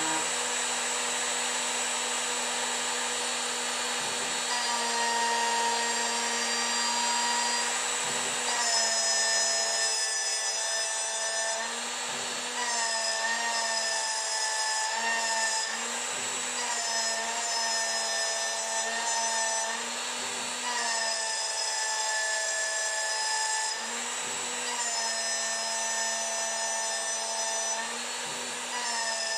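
CNC mill's spindle and carbide end mill cutting aluminum at a 70 mil depth, a steady machining whine made of several high tones. The pitches shift every few seconds as the cutter works back and forth across the block.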